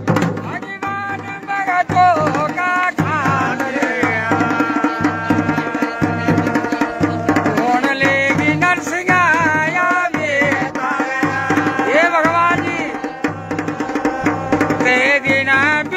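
Dhol and damau drums playing a steady, driving folk rhythm, with a sustained, wavering melody ornamented with pitch bends carried over the beat.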